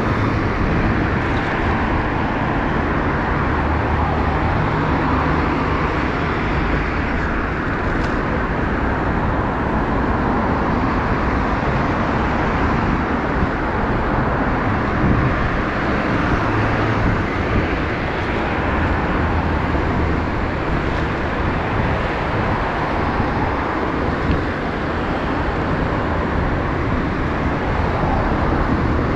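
Steady traffic noise from cars driving along a multi-lane city road, heard from a bicycle riding in the kerb lane, with the low hum of passing engines swelling and fading.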